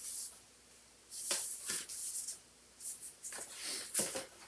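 Hands handling CDs and their packaging: several short rustling and scraping sounds, irregularly spaced.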